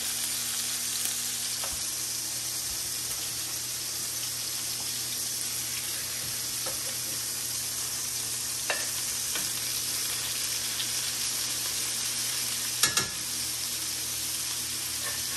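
Pork patties frying in a hot cast iron skillet, a steady sizzle, just after being flipped. A few short sharp clicks sound over it, the loudest near the end.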